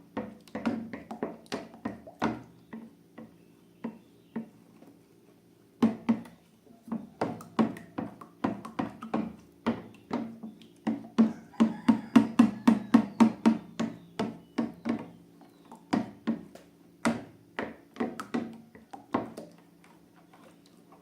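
An irregular run of sharp clicks and taps of hard objects, quick and loudest about halfway through, with a pause about four seconds in. A faint steady hum lies under the taps.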